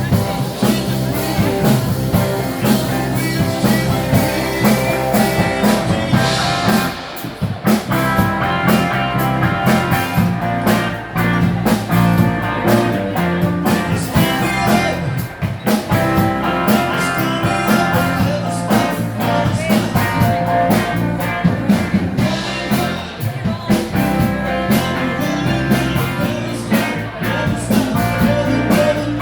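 Rock music with electric guitar, drums and singing, played loud in a pub.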